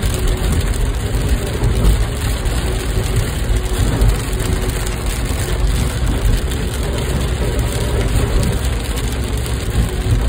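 Steady low rumble of a car driving, heard from inside the cabin, with heavy rain hissing on the body and windscreen.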